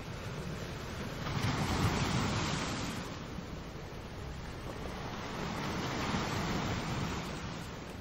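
Sea surf breaking and washing over rocks on a rocky shore: a continuous rushing hiss that swells twice, once from about a second in and again around six seconds.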